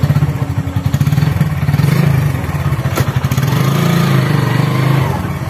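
Small motorbike engine idling close by, a steady, rapidly pulsing low putter that rises slightly in pitch for a moment a little past the middle.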